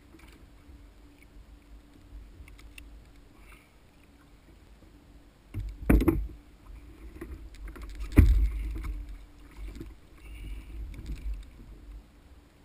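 A freshly landed wahoo being handled on a plastic fishing kayak: two heavy thumps about two seconds apart as the fish knocks against the hull, amid small knocks and clicks and a low rumble.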